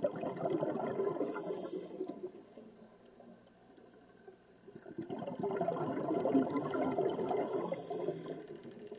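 Rushing water sound that swells twice, with a quieter stretch of a couple of seconds in the middle.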